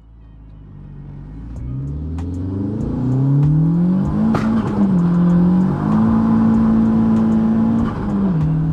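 Turbocharged 1.8T 20-valve four-cylinder engine of a Mk2 Golf accelerating hard. The revs climb steadily, then the pitch steps down and holds at gear changes. A single sharp crack comes about four seconds in.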